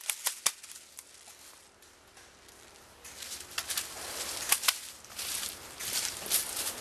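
A few sharp cracks in the first half second, then a quiet stretch, then rustling footsteps through leaves and brush with scattered sharp snaps from about three seconds in.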